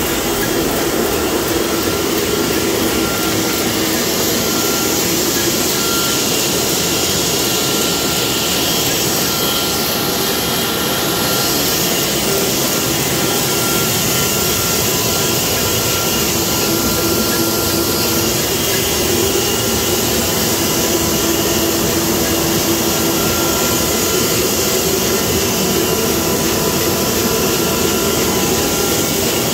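Komori Lithrone L-426 four-colour sheetfed offset press running: a loud, steady mechanical whirr with a constant hum, without break.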